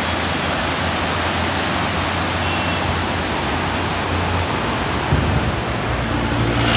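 Steady rushing roar of the rain-swollen Beas River in spate, whitewater pouring over boulders. A vehicle engine's low hum comes in near the end.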